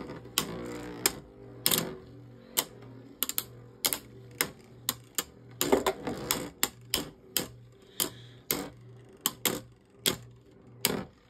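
Two plastic-generation Beyblade spinning tops, Roller Defense and Metal Driger, battling in a clear plastic stadium: sharp plastic clacks at uneven intervals, about one or two a second, as they hit each other and the stadium wall, over a low steady hum.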